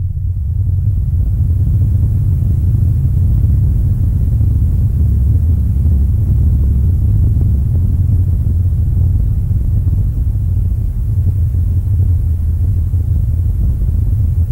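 Deep, steady rumbling sound effect for a giant walking elephant, its weight almost all in the lowest bass, with no separate footfalls standing out.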